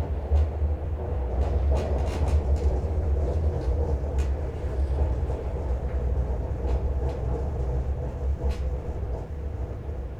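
Tram running on its rails: a steady low rumble and hum, with scattered clicks and rattles.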